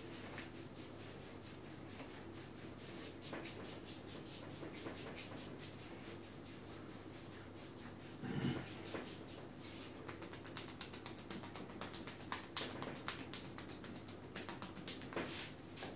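Hands rubbing and stroking the bare skin of a calf in a massage: a steady run of soft rubbing strokes that become quicker and sharper from about ten seconds in. There is a brief low sound about eight seconds in, over a faint steady high whine.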